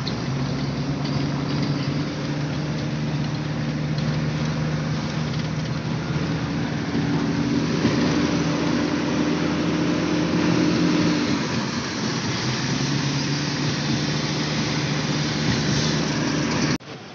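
Car engine running and tyre and road noise heard from inside the cabin while driving slowly through town; the engine hum shifts in pitch a few times with speed. It cuts off suddenly near the end.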